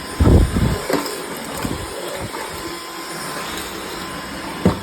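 Dyson V11 cordless stick vacuum running steadily, with a heavy low bump about half a second in and a sharp knock near the end.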